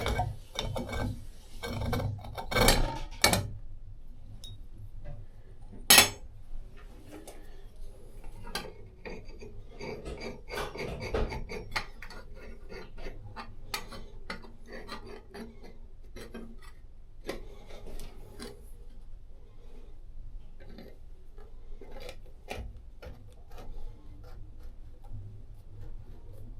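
Metal tools and faucet parts clinking, knocking and scraping as the faucet is worked on by hand. There are sharp knocks about 3 and 6 seconds in, then lighter scraping and ticking.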